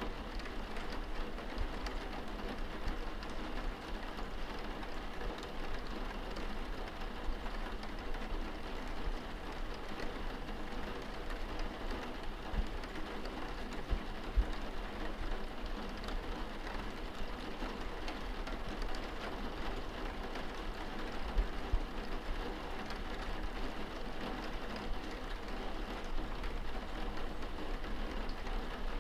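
Light rain falling on a window pane, heard from inside the room: a steady hiss with scattered drop taps, and a few louder drops about halfway through and again two-thirds of the way in.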